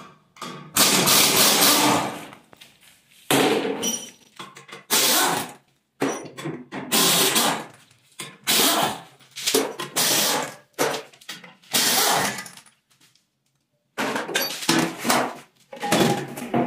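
A power tool, most likely a pneumatic impact wrench, running in about ten short bursts of roughly a second each, undoing the bolts of a Toyota 1FZ engine's clutch pressure plate.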